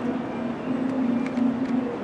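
Bombardier R62A subway train starting to pull out of the station: a low, steady motor hum with a few faint clicks as the cars begin to roll.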